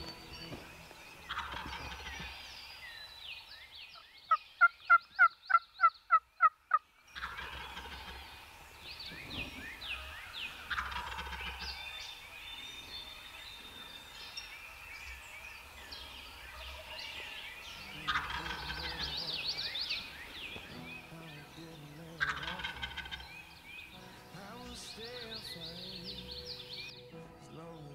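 A wild turkey gobbler gobbling several times, each gobble a quick rattling, falling call. About four seconds in comes a run of about eight loud, evenly spaced yelps, the loudest sound here.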